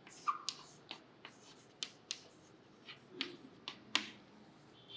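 A few faint, sharp clicks and taps, about eight scattered irregularly with quiet between them; the sharpest comes near the end.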